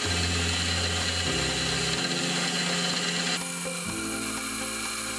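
Soft background music of held notes that change every second or so, over the steady high hiss of a small milling machine's spindle running while the part is centred with a wiggler edge finder. The hiss changes tone about three and a half seconds in.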